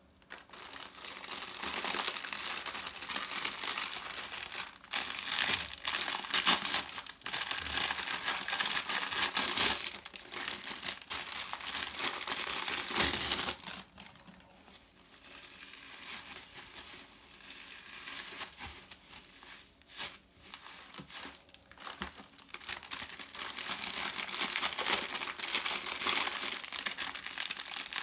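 Plastic wrappers of new foam sponges crinkling and rustling as they are handled and pulled open, in bursts of loud crinkling with a quieter stretch for several seconds about halfway through.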